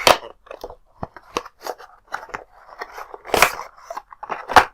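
Packaging being handled: crackling and crinkling from the Mi Band 3's box and its wrapping, with a few sharper knocks, the loudest about three and a half seconds in and near the end.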